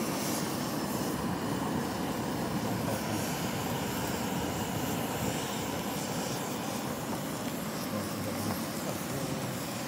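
Hand-held butane canister blowtorch hissing steadily as its flame singes the fur off squirrel carcasses.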